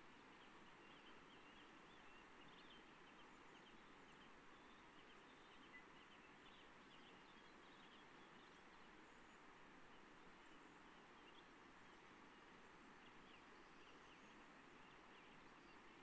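Faint, steady rush of a shallow river running over stones, with many small, high bird chirps scattered over it.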